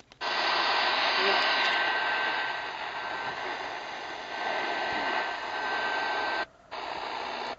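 Shortwave static from an E5 portable receiver tuned to 17605 kHz: a steady hiss with a faint high whistle and no clear programme. The radio mutes for a moment as it is retuned, at the start and again about six and a half seconds in, and is quieter after the second break.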